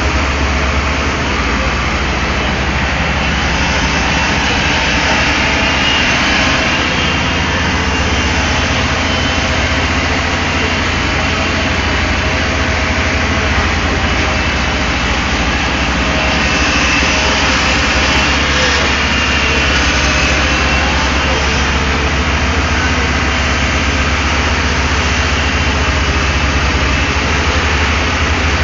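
Daewoo Solar 280 LC-III excavator's diesel engine running steadily, with a higher whine that swells and fades twice, around six seconds in and again from about seventeen to twenty-one seconds.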